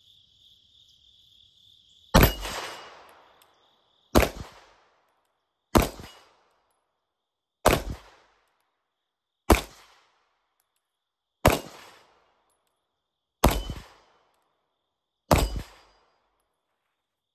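Eight 9mm pistol shots from a Gen 3 Glock 19, fired one about every two seconds at steel plates, the first about two seconds in. Several shots are followed by a brief metallic ring of a steel plate being hit.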